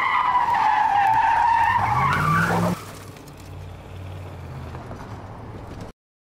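Car tyres squealing in a hard braking skid for nearly three seconds, the pitch dipping and then rising before it stops suddenly. After that comes a lower, steady rumble of road and engine noise.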